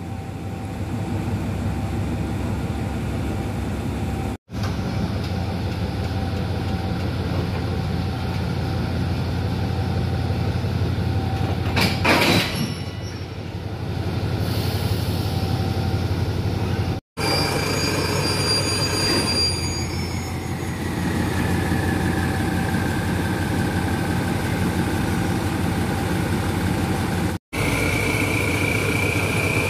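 GEK-class General Electric diesel-electric locomotive engine running with a steady low hum while it moves along the platform to couple to its carriages. A short, loud burst of noise comes about twelve seconds in. Later a high whine falls in pitch, and near the end it rises again.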